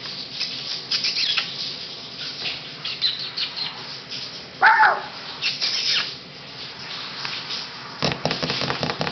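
Three-week-old Pomeranian puppies scuffling on a fleece blanket: steady rustling and scrabbling, with one short high puppy yip about halfway through and a bump near the end. A shower hisses in the background.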